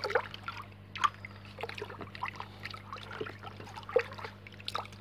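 Water sloshing and splashing in a plastic bucket as a bare hand stirs salt into it to dissolve it, with many small irregular splashes. A steady low hum runs underneath.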